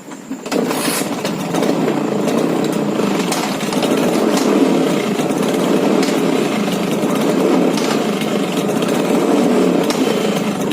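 LML Select II scooter's two-stroke engine comes on about half a second in and then runs steadily.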